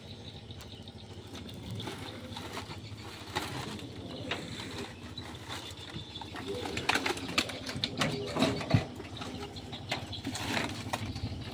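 Woven plastic sacks of charcoal rustling and knocking as they are handled and loaded onto a truck, with irregular sharp knocks that grow busier about halfway through.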